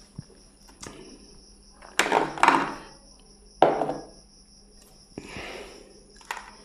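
Food being served by hand at a table: a few short knocks and clinks of fingers and a small glass bowl against a plate, then a soft scrape as greens are tipped out of the bowl, over a faint steady high whine.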